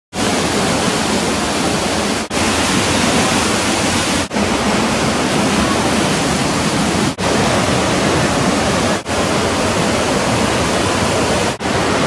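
Waterfall pouring and splashing onto rocks close by: a loud, steady rush of falling water, broken by a few very short dips in level.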